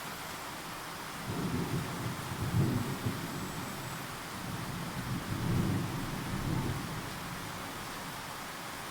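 An old pet snoring: two low, rumbling snores, one about a second in and another about halfway through, over a steady hiss.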